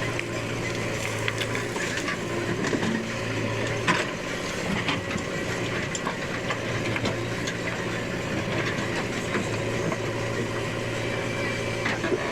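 Heavy-machinery diesel engine running steadily, with scattered metallic knocks and a sharper knock about four seconds in.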